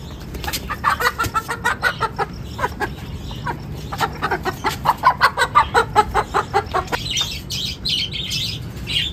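Golden Buff hens clucking in quick runs of calls, about four or five a second. Near the end comes a burst of wing flapping and scuffling as the hens are caught and picked up.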